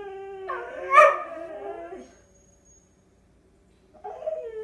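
Husky making drawn-out, wavering howl-like whines in protest, impatient for a treat. There is a louder yelp about a second in, a pause of about two seconds, then it starts again near the end.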